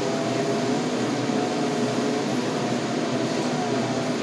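Heavy machinery running steadily: a loader's diesel engine at a constant speed, with a hydraulic whine whose pitch drifts slightly.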